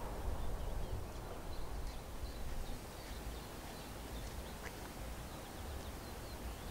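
Outdoor ambience: wind rumbling on the microphone, with faint, scattered chirps of small birds.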